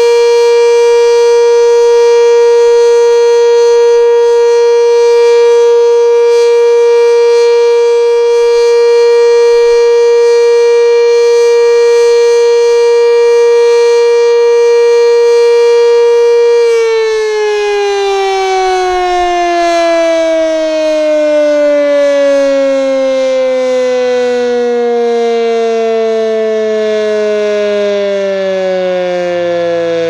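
Sentry 3V8 tornado siren, installed in the early 1970s, sounding its Alert signal: one loud steady tone. A little past halfway it is switched off and winds down, the pitch falling steadily.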